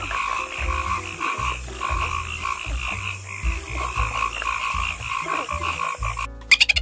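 Frog calling in a fast, pulsing trill of repeated croaks, which cuts off about six seconds in. Background music runs underneath.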